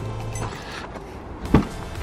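Car door being opened: a single sharp click of the latch releasing about a second and a half in.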